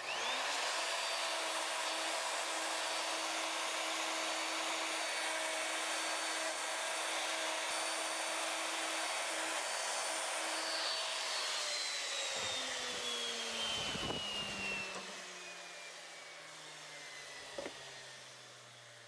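DeWalt plunge router switching on, whining up to speed, and cutting the wider, shallower housing pocket in a hardwood leg through a jig with a guide bushing. After about eleven seconds it is switched off and its whine falls away slowly as the motor spins down.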